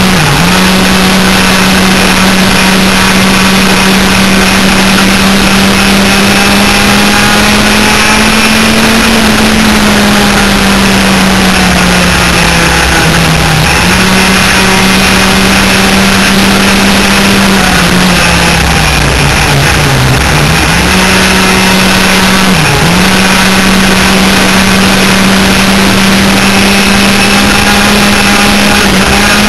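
Enduro laydown kart's two 100cc two-stroke engines running at high revs in a race, a loud steady drone. The pitch sags and comes back a few times: a gradual sag before the middle ending in a sudden jump back up, a longer dip about two-thirds through, and a quick dip shortly after, as the throttle comes off and goes back on through corners.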